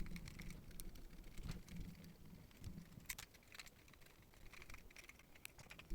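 Faint scattered clicks and light taps of a Blue Yeti USB microphone being taken apart by hand, over a faint low hum.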